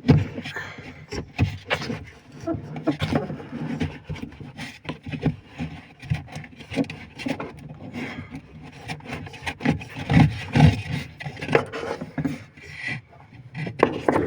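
Irregular knocks, clicks and scraping as a semi-automatic washing machine's gearbox assembly is handled and worked on; the gearbox is worn out.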